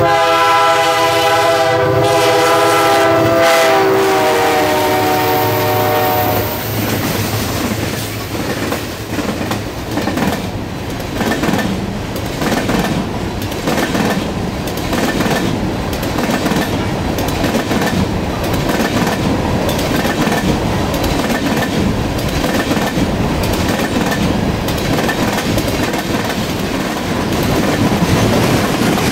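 A freight locomotive sounds its air horn as it approaches and passes. The horn drops in pitch as the locomotive goes by and stops about six seconds in. For the rest, the long string of loaded freight cars rolls past, their wheels clacking rhythmically over the rail joints.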